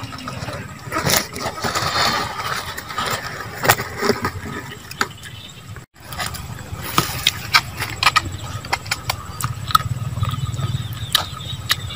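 Grilled, dried banana leaves crackling and rustling as a leaf-wrapped parcel of fish is opened and handled, with many short clicks and scrapes, over a low steady rumble that is strongest near the end.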